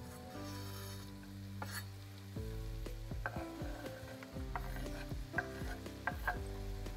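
Food sizzling in a frying pan as it is stirred, the utensil knocking against the pan half a dozen times, more often in the second half.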